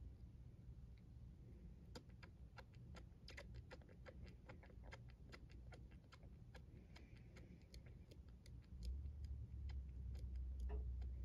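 Newborn kitten suckling on a nursing-bottle nipple, making irregular quick clicks and smacks that come thickest in the first half. A low hum comes up louder near the end.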